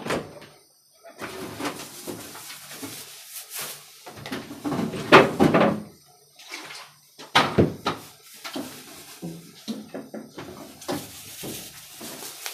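Irregular handling noises at a kitchen counter: scattered knocks and rustles, with a louder noisy stretch about five seconds in and a sharp knock about seven and a half seconds in.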